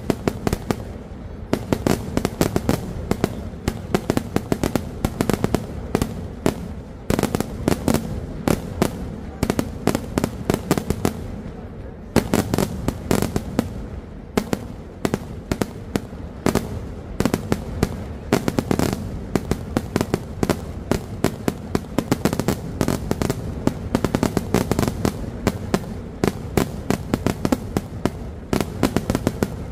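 Kerala vedikkattu fireworks going off: a rapid, almost unbroken string of loud bangs and cracks, several a second, with a few brief lulls.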